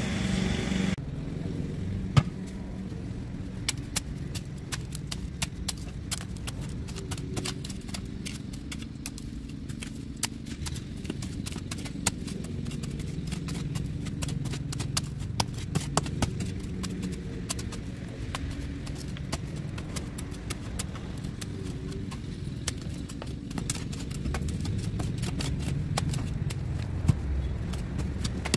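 Steel shovel digging into dry garden soil, with many short scraping strikes and clinks as the blade bites into dirt and small stones. A steady low rumble runs underneath.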